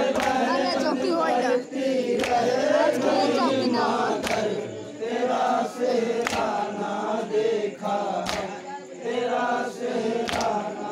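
Crowd of men singing a Muharram noha (lament) in chorus, with a sharp unison slap about every two seconds, typical of chest-beating (matam) keeping time to the lament.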